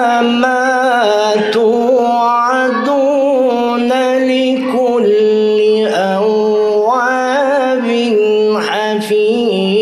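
A man reciting the Quran in the melodic tilawah style: long held notes with quick ornamental turns and trills between them, in one continuous drawn-out melodic line.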